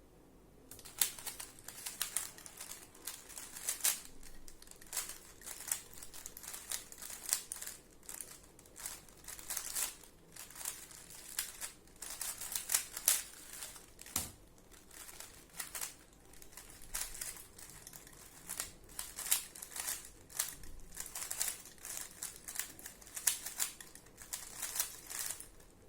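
Rubik's cube being turned rapidly in a speed solve: a dense, irregular stream of plastic clicks and clacks as the layers snap round. It starts about a second in and breaks off briefly just before the end.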